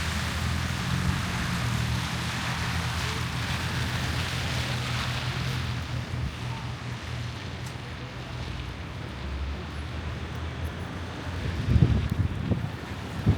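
Storm wind blowing across the microphone: a steady low rumble and rushing hiss that eases after about six seconds, then a few hard gusts buffet the microphone near the end.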